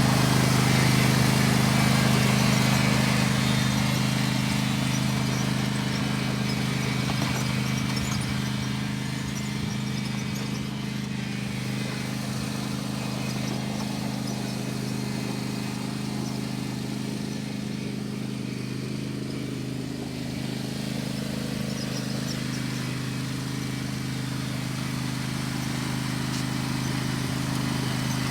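Lawn mower's small engine running at a steady throttle, fading a little in the middle and growing louder again near the end.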